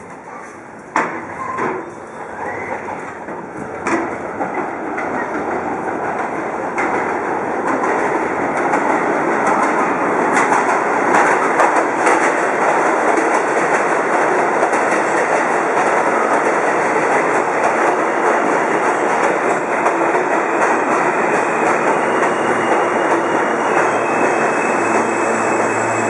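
New York City Subway R160A train pulling into the station: its rumble and rail clatter grow louder over the first several seconds, then hold loud and steady as the cars run past. A high whine comes in near the end as the train slows.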